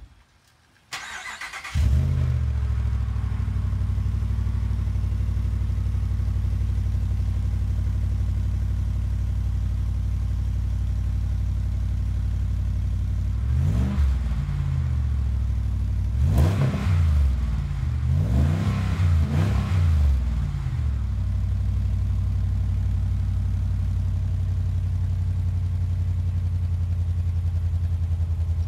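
Ram 1500's 5.7 Hemi V8 exhaust through a Magnaflow muffler with resonators. It is cranked and fires about two seconds in, then settles into a steady idle. It is revved once around the middle and then several quick times in a row, after which it drops back to idle.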